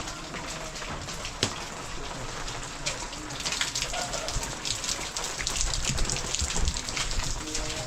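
Heavy rain falling, with many separate drops striking close by; it grows heavier about halfway through.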